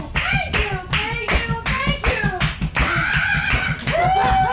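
Steady rhythmic hand clapping, about four claps a second, under a voice singing short gliding phrases that settles into a long held note near the end.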